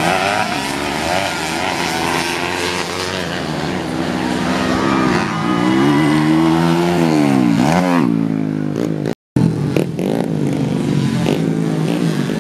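Small motocross dirt-bike engines revving hard as they race, pitch rising and falling with throttle. One bike gets loud between about five and eight seconds in, with sharp swoops in pitch, before the sound cuts out for a moment.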